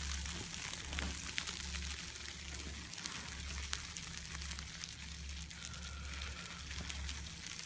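Wind buffeting the phone's microphone in low, gusting rumbles, over a steady crackling hiss with scattered clicks from the phone rubbing and tapping against a jacket.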